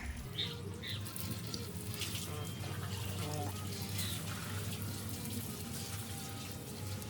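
Water running steadily from a tap, with a few light knocks of parts being handled in it.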